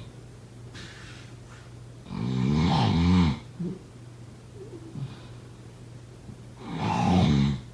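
Snoring in sleep: two long, rattling snores about four and a half seconds apart, one about two seconds in and one near the end, each lasting about a second. A faint breath comes between them, over a steady low hum.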